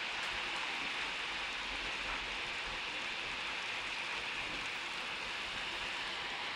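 Downpour: heavy rain falling steadily on wet pavement, roofs and puddles, an even hiss with no breaks.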